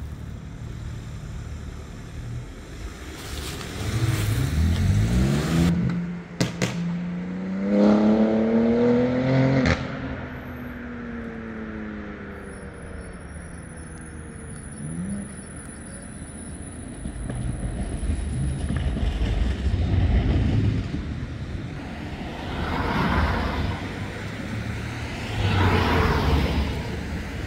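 City street traffic: a vehicle's engine rises in pitch as it accelerates a few seconds in, then fades. Later, several more vehicles pass one after another.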